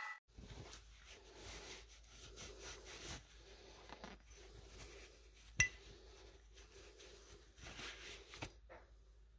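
Paper towel rubbing and wiping over a steel axe head, with soft handling noises and one sharp clink about halfway through.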